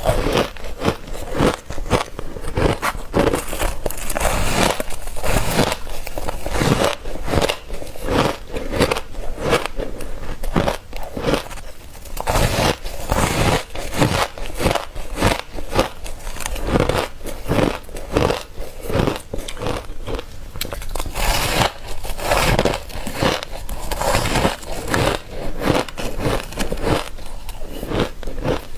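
Ice being bitten and crunched close to the microphone, a rapid run of sharp crackling bites one after another.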